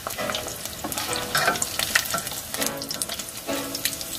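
Salmon croquettes deep-frying in hot olive oil, sizzling and crackling steadily with many irregular pops.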